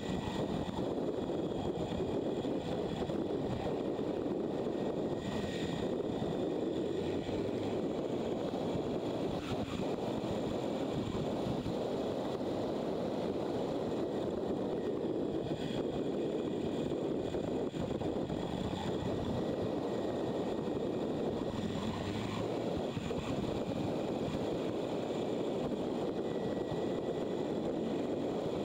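Riding noise from a motorcycle at speed: steady wind rush over the mounted camera's microphone mixed with engine and road noise, unbroken throughout.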